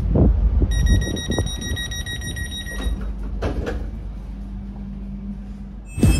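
An electronic train-door warning beeper sounds a rapid pulsed tone for about two seconds over the low rumble of the carriage. A few light knocks follow, and a sharp loud thump comes near the end.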